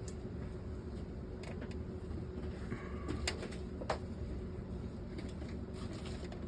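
A small screwdriver backing out a tiny screw on a car stereo head unit: a few faint clicks and a brief falling squeak over a steady low hum.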